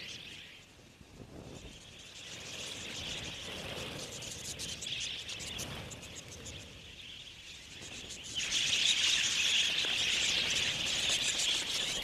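A large flock of budgerigars chattering, a dense continuous twittering that grows much louder about eight and a half seconds in.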